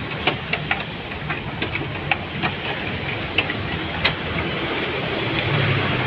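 Honda City's engine running steadily, overlaid by irregular light clicks and knocks from hands handling hoses and wiring in the engine bay. The hum grows a little louder near the end.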